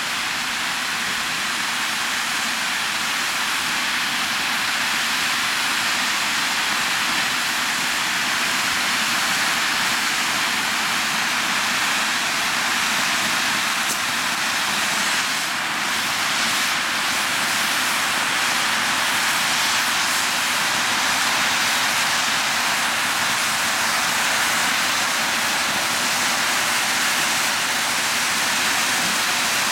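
Firework fountains spraying sparks with a steady, loud hiss, growing slightly louder as more fountains burn together.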